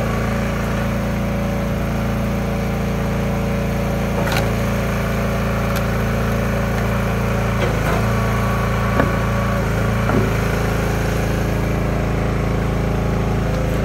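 Small gasoline engine of a log splitter running steadily at a constant speed, with a few short knocks about four, eight, nine and ten seconds in.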